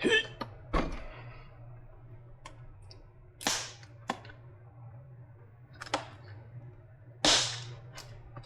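Sharp cracks and snaps from a battery pack's plastic housing and taped cover being pried apart. The longer rasping ones come about 3.5 s and 7 s in, over a steady low hum.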